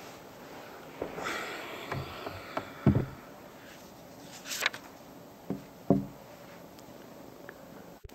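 Scattered knocks and thumps of people moving about desks and chairs, with a short scrape about a second in. A faint steady hiss runs underneath.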